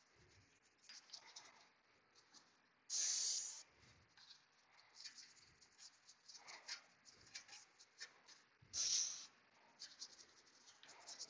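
Two short hissing bursts of aerosol brake cleaner, about three and nine seconds in, between stretches of a stiff brush scrubbing a brake caliper.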